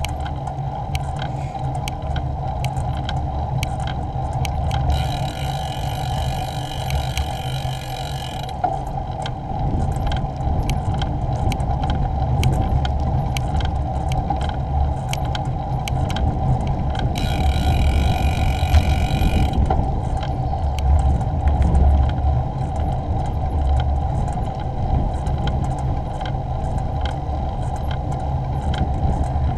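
Riding a bicycle along a tarmac lane: a steady low rumble of wind on the camera microphone and tyres on the road, with small ticks and rattles from bumps. Twice, for a few seconds each, a higher even buzzing whir joins in.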